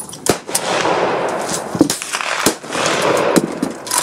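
Irregular rifle gunfire on a shooting range: a string of sharp cracks, some under half a second apart and others a second or so apart, with echoes filling the gaps between them.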